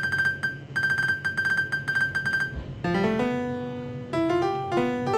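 TV news theme music: quick repeated staccato notes on one high pitch for the first two and a half seconds, then held chords that slide upward and step higher.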